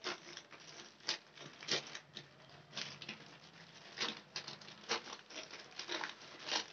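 White plastic courier mailer bag crinkling and rustling as it is pulled and torn open by hand, with irregular sharp crackles about once a second.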